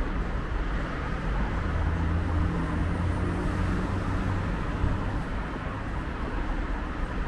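City street traffic noise, steady, with one motor vehicle's engine hum standing out from about one and a half to five seconds in.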